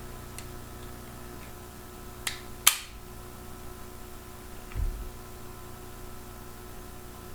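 Warnant revolver being handled: two sharp metallic clicks close together about two and a half seconds in, then a soft low thump, over a steady hum.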